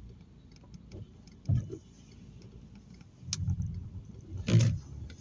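Car running steadily, heard from inside the cabin as a low rumble, with scattered faint ticks, a sharp knock about a second and a half in, a click a little after three seconds, and a dull thump near the end, the loudest sound.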